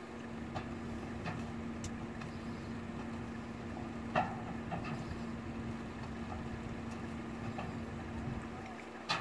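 An engine idling with a steady low hum, heard from inside a car. Two short knocks stand out, about four seconds in and near the end.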